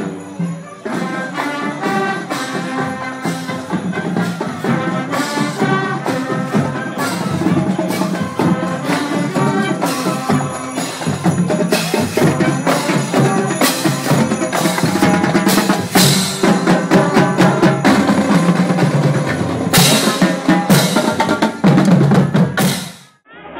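High school marching band playing as it marches past: saxophones and other wind instruments carry the tune over a drumline's steady beat. The sound cuts off abruptly near the end.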